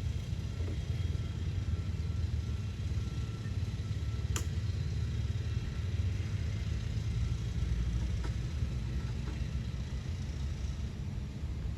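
A steady low rumble, with one sharp click a little over four seconds in and a few faint ticks later.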